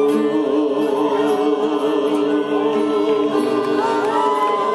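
A fado group's accordion and guitars hold a final chord with voices singing along. Near the end the crowd starts cheering.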